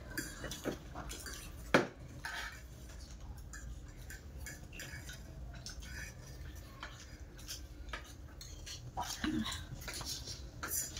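Metal forks clinking and scraping on ceramic plates as two people eat quickly, many small irregular clicks with one sharper clink about two seconds in.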